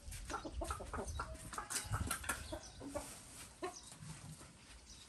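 Chickens clucking: a string of short clucks, thick for the first three and a half seconds and then thinning out.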